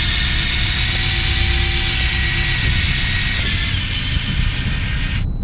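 Baitcasting fishing reel cranked steadily as a hooked fish is wound in, giving a continuous whirring whine that cuts off suddenly near the end.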